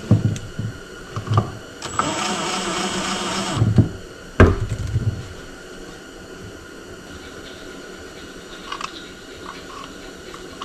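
Power drill running steadily for nearly two seconds as it drives a 5-inch trim screw into a wooden slab, with a few knocks and handling clunks before it and one sharp knock just after.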